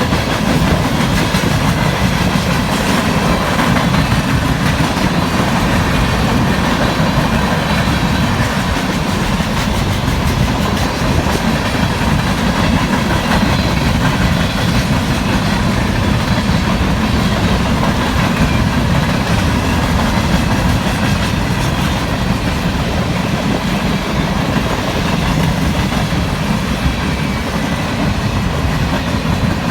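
A CSX coke train's freight cars rolling steadily past, with loud, continuous wheel and rail noise and clickety-clack.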